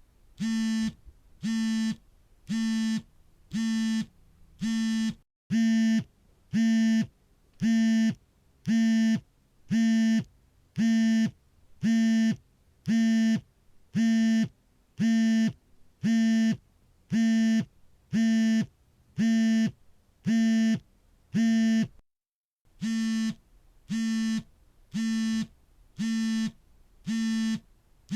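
Smartphone vibration motor buzzing in a steady pattern of short buzzes, about one a second, each lasting about half a second: a phone vibrating for an incoming call. The buzzing breaks off briefly twice, about 5 s in and about 22 s in, and is louder between those breaks.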